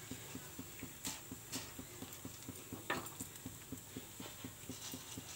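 Hot oil crackling and popping quietly in a frying pan as freshly fried segdalu, sesame-coated rice-flour rings, are lifted out on a wire skimmer: a steady run of small pops, about five or six a second, with a few sharper clicks.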